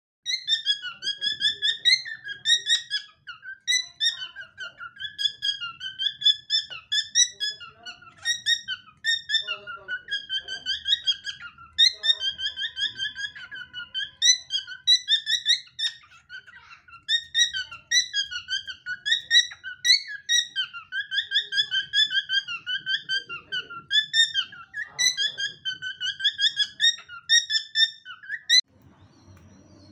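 Cockatiel chattering and whistling: a long, rapid stream of short, wavering warbled notes, cutting off suddenly near the end.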